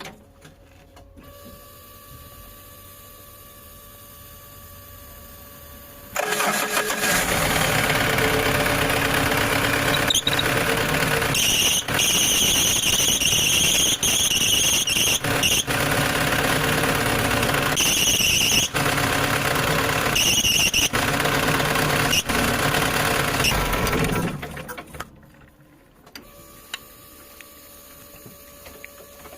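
Car engine running, loud from about six seconds in until near the end, with a high squeal that comes and goes several times: the power steering belt slipping.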